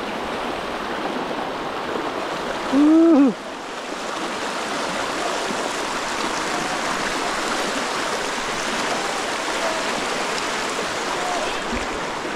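Shallow rocky stream rushing over bedrock riffles in a steady, even hiss. A person's short, loud call rises and falls in pitch about three seconds in, and fainter voices are heard briefly later on.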